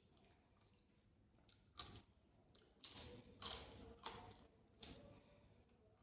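Close-up eating sounds: a handful of short, wet mouth smacks and chews in the middle of the stretch, with quiet between them.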